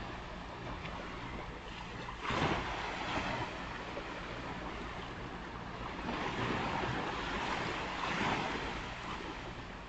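Surf on a beach: a wave breaks sharply a couple of seconds in, and more waves wash in through the second half, over a faint steady low hum.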